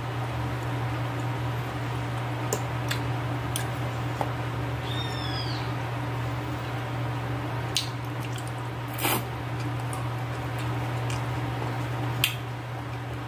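Close-up eating sounds from chewing tough stewed okra: a few scattered wet mouth smacks and clicks over a steady low hum, with one brief high chirp about halfway through.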